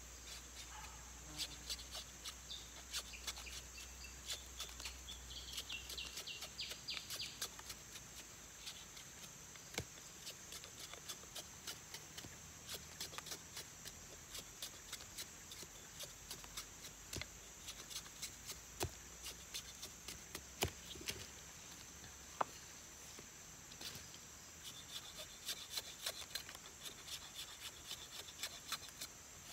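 Machete blade scraping the green skin off a thin, freshly cut plant stem in quick, light strokes, heard as many faint irregular clicks and scrapes. A steady insect drone runs behind it.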